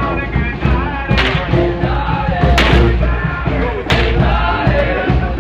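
Parade band music playing loud, with a heavy bass beat and a cymbal-like crash roughly every second and a half.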